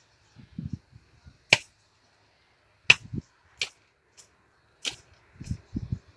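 Hand hoe chopping into garden soil: several sharp strikes at uneven intervals, with duller thuds of earth between them.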